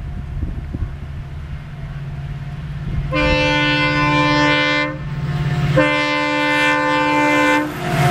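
WDP4B diesel locomotive approaching at speed, sounding its multi-tone air horn in two long blasts of about two seconds each over the steadily growing drone of its engine.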